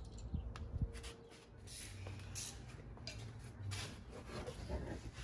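Faint rustling and shuffling, with a couple of soft thumps in the first second, as things are handled and moved about, such as items and trim being cleared out of a car's trunk.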